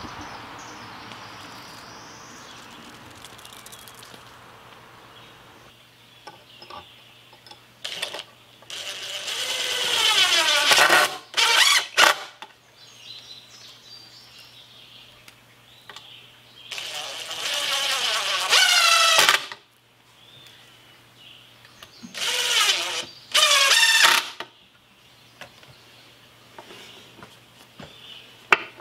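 Cordless drill run in three bursts of a few seconds each, its motor whine rising and bending in pitch as it speeds up and takes load.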